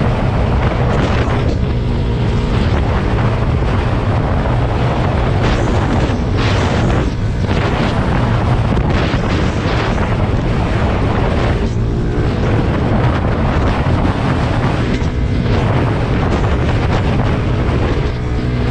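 Wind buffeting the microphone over a steady, low engine drone, as when riding in a moving vehicle.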